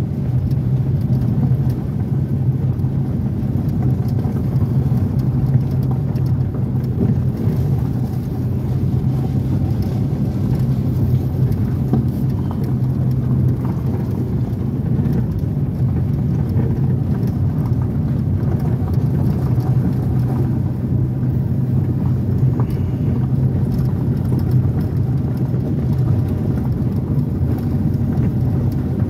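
Car driving on a gravel road, heard from inside the cabin: a steady low rumble of engine and road noise from the tyres rolling over gravel.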